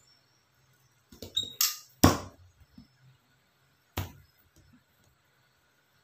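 Lengths of stiff wire handled and pushed onto a wire ring: a few sharp clacks and scrapes, the loudest just after two seconds in and another about four seconds in.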